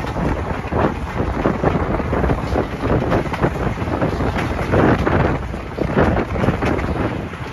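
Heavy wind buffeting on the microphone held out of the window of a moving train, over the rumble of the coach running along the track.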